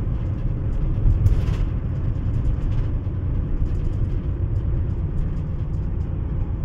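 Steady low rumble of road and engine noise inside a moving car's cabin, with one brief louder noise a little after a second in.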